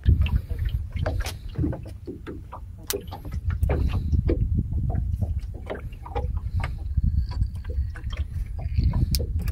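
Low steady rumble of wind and water around a small open fishing boat, with scattered sharp clicks and knocks, several a second, as a longline is hauled in by hand over the gunwale and fish are handled into a plastic crate.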